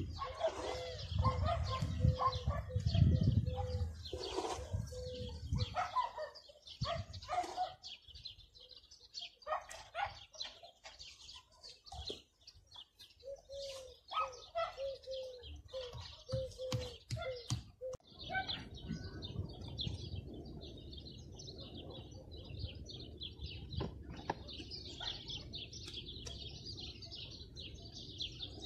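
Sharp taps and knocks of a mason's trowel on stone blocks as a stone wall is laid, with heavier low thumps in the first few seconds. Birds call and chirp throughout: a repeated low call twice, and steady high chirping in the second half.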